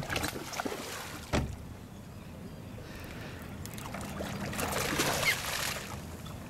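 Hooked striped bass thrashing and splashing at the surface beside the boat as it is played in, the splashing building to its loudest about four to five seconds in. A sharp knock comes about a second and a half in.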